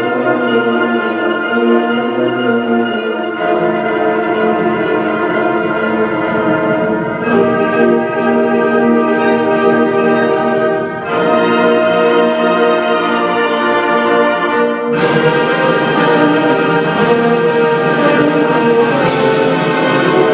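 Orchestral music: held chords from strings and brass that change every few seconds, swelling fuller and brighter about three-quarters of the way through.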